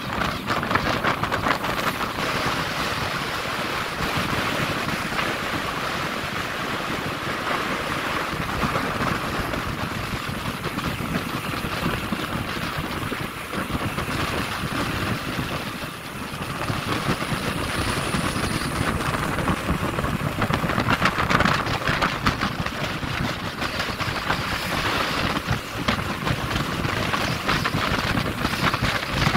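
Wind rushing over the microphone of a moving two-wheeler, with engine and road noise underneath. It is a steady rush that dips for a moment about halfway through.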